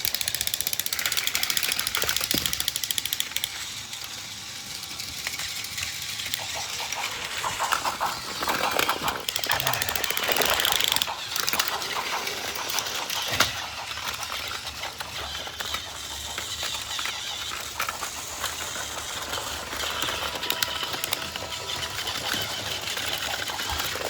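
Battery-powered Plarail toy trains running on plastic track: a steady, fast mechanical rattle of wheels and motor clattering along the rails, with a sharper clack about halfway.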